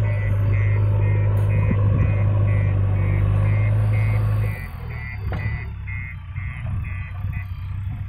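Mahindra tractor's diesel engine running with a steady low hum. It is loud and close for the first four and a half seconds, then quieter and more distant. A high electronic beep, like a reversing alarm, repeats about twice a second and stops near the end.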